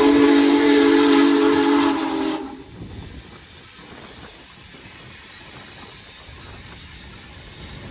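Union Pacific Big Boy 4014 steam locomotive's whistle blowing a loud, low chord of several tones with a rush of steam, cutting off sharply about two and a half seconds in. After that, the quieter, steady rumble of the locomotive and its tender rolling past.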